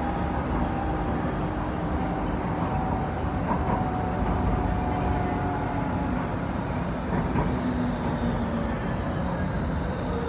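Rotterdam metro train running into a station, heard from inside the car: a steady rumble of wheels and running gear, with a faint motor whine that slowly falls in pitch as the train slows.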